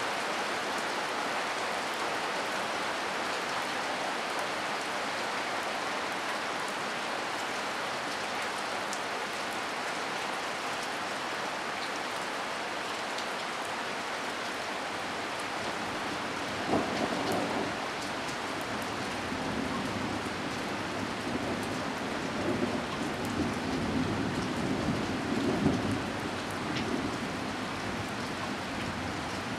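Heavy rain falling hard and steady. A little past halfway there is a sudden clap of thunder, and near the end a long, uneven low rumble of thunder rolls through.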